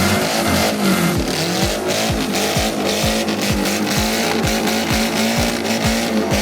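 A fast electronic dance track with a pounding kick drum, about two beats a second from about a second in, over engine noise.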